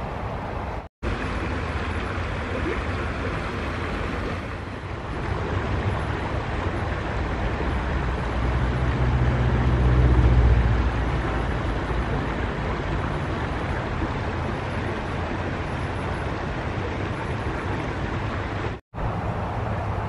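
Shallow river flowing over a pebbly bed, a steady rushing of water. A low rumble swells around the middle, and the sound drops out briefly twice, about a second in and near the end.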